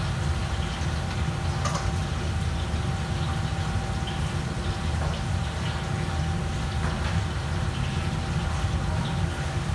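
Steady low rumble of commercial kitchen equipment, with a thin steady hum above it and a few faint clinks of utensils.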